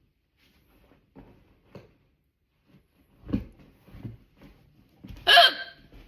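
A person's loud hiccup near the end, a short voiced catch in the throat, one of a run of persistent hiccups. A softer low thump comes about halfway through, with faint rustling between.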